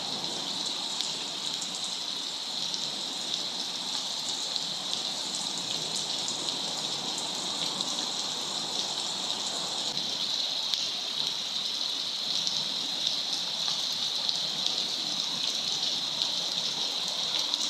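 Steady rain falling: a continuous, even high hiss with fine patter of drops.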